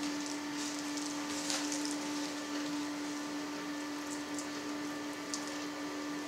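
Faint squelching and rubbing of a stuffed hog casing as it is pinched and twisted into sausage links, a few soft wet ticks over a steady hum.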